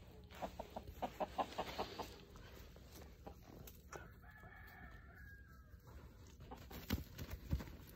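Chickens clucking in a quick run of short calls, then a rooster crowing faintly, held for over a second. Two sharp knocks near the end.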